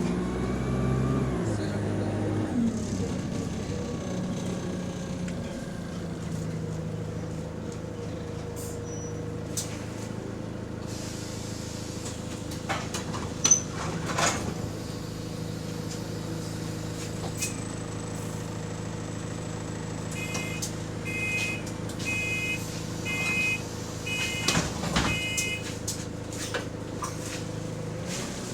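Diesel bus engine, heard from inside the cabin, slowing down over the first two seconds and then idling steadily while stopped. Sharp hisses and clunks come about halfway through, and a run of repeated beeps comes near the end, typical of the bus's air-operated doors and their warning chime.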